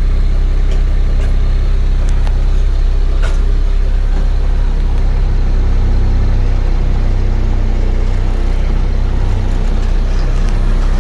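Large vehicle engine idling steadily, with a few faint clicks over it.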